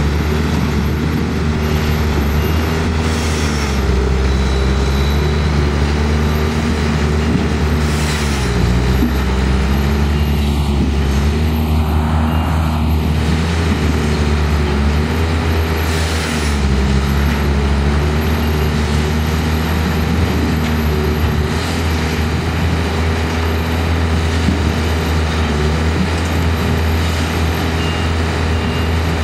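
Engines of several heavy machines running steadily under load, their engine speed dipping and recovering now and then, with a few brief sharper noises over the top.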